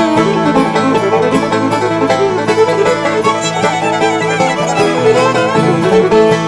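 Upbeat bluegrass-style music with fiddle and quickly plucked banjo.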